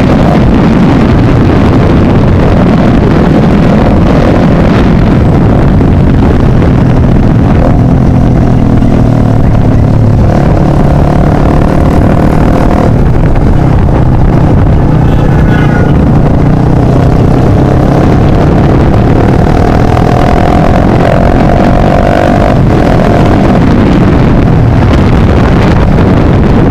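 Yamaha Fazer motorcycle with an open exhaust riding, its loud engine note rising and falling with the throttle over a constant rush of noise.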